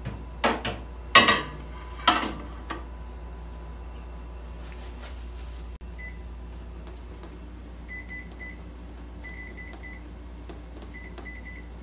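Microwave oven: a few sharp clunks as a metal pot is set inside and the door is shut, then the keypad beeping, one beep and then quick runs of short high beeps as its buttons are pressed.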